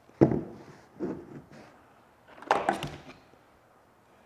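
A small bronze cleat set down on a tabletop with a sharp knock, a softer knock about a second later, then a quick run of clicks a little past halfway as a folding rule is snapped open.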